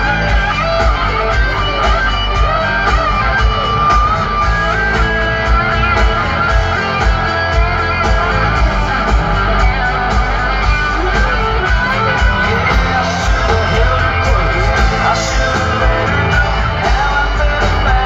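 A live country-rock band playing through a concert PA, heard from the audience: electric guitar lines over a steady bass and drum beat.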